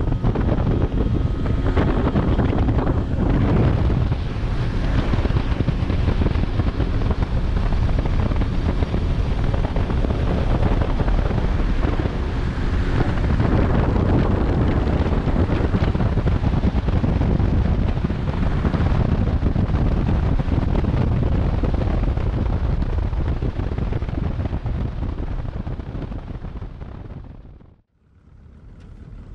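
A Johnson outboard motor pushes an aluminium jon boat along at speed, with heavy wind buffeting the camera microphone; the noise fades out near the end.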